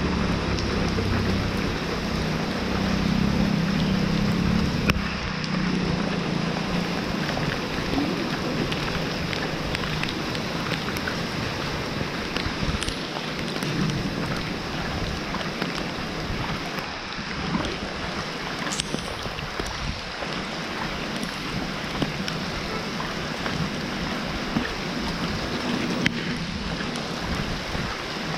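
Steady rain falling, with many small drop ticks throughout, and a low rumble over the first few seconds.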